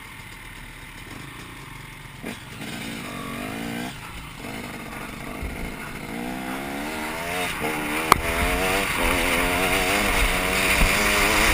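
Motocross bike engine accelerating through the gears, its pitch climbing and dropping back at each shift and getting steadily louder, with wind rushing over the helmet-mounted microphone. A sharp knock about eight seconds in.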